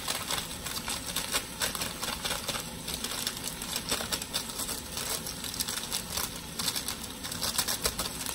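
Spatula stirring chopped tomatoes, onions and ground spice masala in a pot, with irregular rapid scrapes and clicks against the pan.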